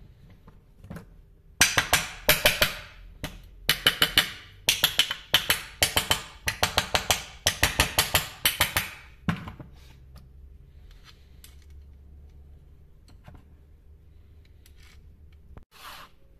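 Quick runs of sharp taps on the metal crankcase of a chainsaw, struck with a hand tool, as the crankcase half is knocked into place over the new crankshaft. There are five or so short runs over about seven seconds, then the tapping stops.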